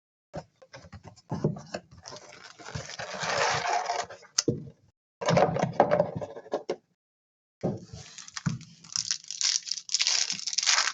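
Sealed trading-card box and packs being torn open and the cards handled: tearing and crinkling wrapper noise mixed with light clicks and taps of card stock. The sound cuts out completely for under a second in the middle.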